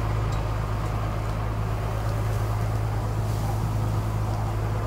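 Fire truck's engine running steadily, a constant low drone as it drives the water pump feeding the hose line.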